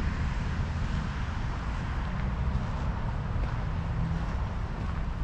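Steady low rumble of an electric scooter ride: tyres rolling on the path and wind buffeting the camera microphone.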